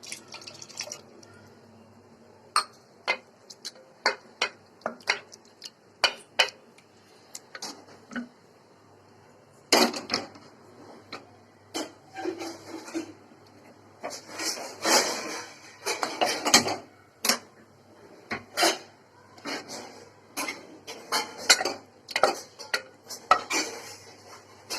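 Metal kitchen utensils clinking and scraping against steel cookware in irregular knocks, with longer stretches of scraping about ten seconds in and again around fifteen seconds in.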